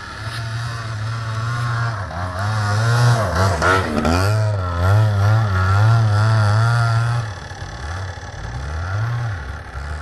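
Yamaha Big Wheel 80's small two-stroke engine revving unevenly up and down as the bike is ridden through snow, the pitch wavering with the throttle. It is loudest in the middle, drops to lower revs about seven seconds in, and rises briefly once more near the end.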